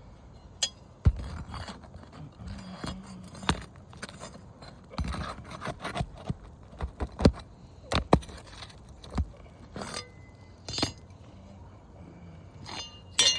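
Hammer and metal pry tools working on asphalt roof shingles: irregular sharp knocks and metallic clinks with scraping between them, as a damaged shingle strip is worked loose.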